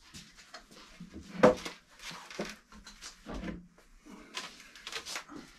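A wooden workbench frame being lifted and turned over by hand: a run of knocks, scrapes and rustles of wood, with one sharper knock about one and a half seconds in.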